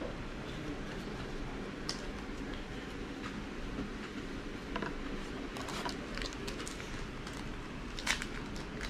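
Trading cards being handled and slid over one another: soft scattered clicks and rustles, the clearest about 2, 5, 6 and 8 seconds in.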